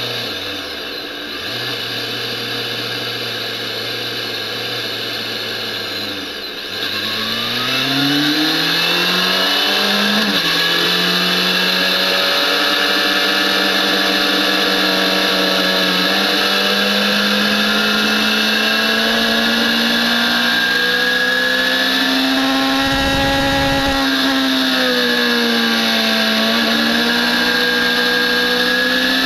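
BMW S1000RR inline-four engine heard onboard. It runs at low revs with two brief drops early on, then revs climb hard and it gets louder as the bike accelerates. It holds high revs, easing off and picking back up near the end.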